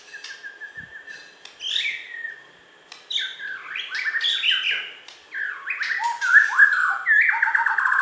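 Borneo white-rumped shama (murai batu) singing: soft repeated short notes at first, then from about three seconds in loud, rapid phrases of falling whistles and trills.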